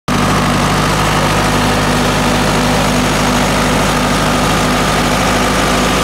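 Zetor 7711 tractor's diesel engine running steadily at a low, even speed.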